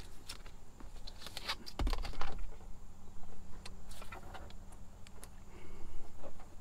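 Hands working a bungee cord through the sunshade fabric: scattered clicks, rattles and rustles, with a heavier knock about two seconds in.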